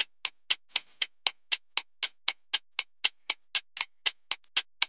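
Countdown timer sound effect: a clock-like tick repeating steadily, about four ticks a second.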